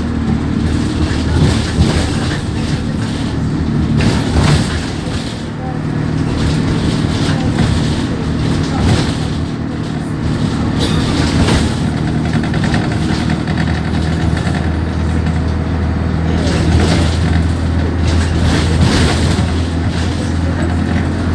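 Alexander Dennis Enviro200 diesel bus running steadily, heard from inside the saloon as a constant low engine hum, with scattered short rattles and knocks.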